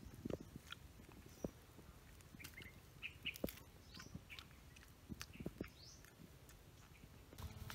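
Faint snaps and crackles of small bananas being peeled and pulled off the bunch by hand, with birds chirping a few times.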